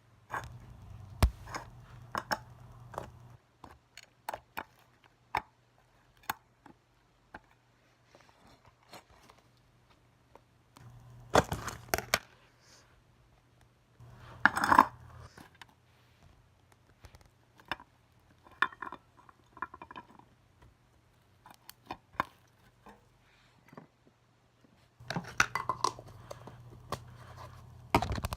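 Slime being handled and squished, giving irregular sharp clicking pops and short crackling bursts, with a few louder clusters of squelching crackles.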